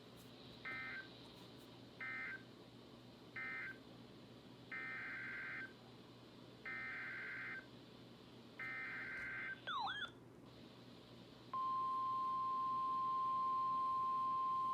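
Emergency Alert System digital data bursts from a NOAA Weather Radio broadcast: three short buzzy bursts marking the end of one message, then three longer one-second bursts of the next alert's header, followed by a brief warble. About two thirds of the way in, the steady, loud single-pitch 1050 Hz weather radio alert tone begins and holds.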